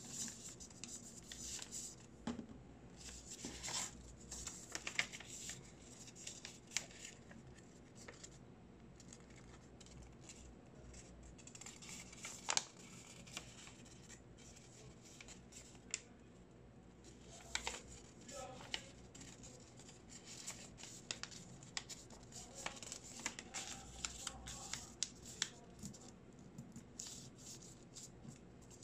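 Origami paper being folded and its creases pressed flat by hand: faint, irregular rustling and crinkling, with one sharper crackle a little before halfway.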